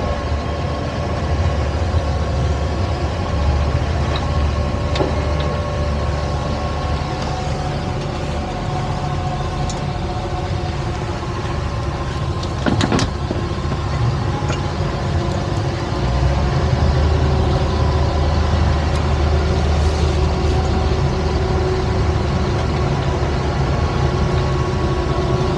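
Twin Suzuki outboard motors on a towboat running under way, a steady low drone with a few held tones; the engine note gets louder about two-thirds of the way through as the tow line is paid out. A single sharp knock sounds about halfway through.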